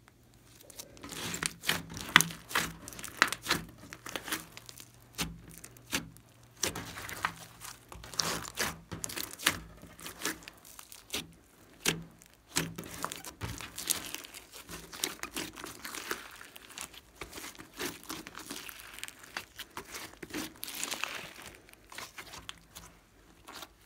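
Glossy slime being kneaded, pressed and stretched by hand, giving a dense, irregular run of sticky clicks and pops that starts about a second in.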